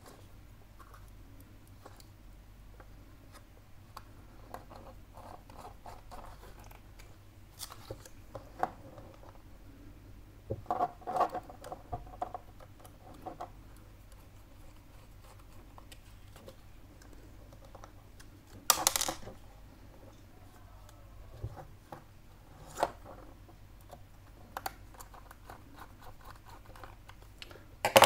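Small Phillips screwdriver turning tiny screws into a metal laptop hard-drive caddy: light scattered clicks and scratches of metal on metal as the caddy and drive are handled. One brief louder noise comes about two-thirds of the way through.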